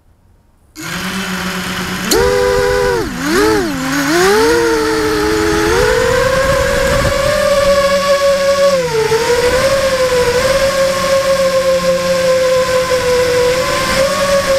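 FPV quadcopter's electric motors and propellers recorded on board: they spin up suddenly about a second in, whine up and down in pitch several times with the throttle, then hold a steady high whine as the quad flies.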